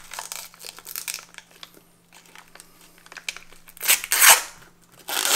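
A sealed foil ration bag being torn open by hand: crinkling foil throughout, with two louder rips, one about four seconds in and a shorter one near the end.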